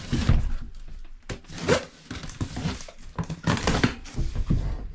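Cardboard box and packaging being handled while a 3D printer is unboxed: irregular knocks, thunks and scraping rustles.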